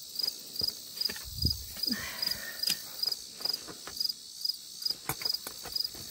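Outdoor insect chorus chirping steadily: a constant high hum with a pulse about three times a second. Over it come scattered clicks and rustles of items being handled, with a dull thump about a second and a half in.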